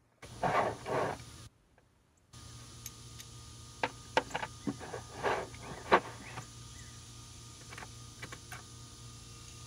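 Metal hand tools being handled: two heavier knocks in the first second, then a scatter of sharp clicks and clinks a few seconds in, over a steady low hum.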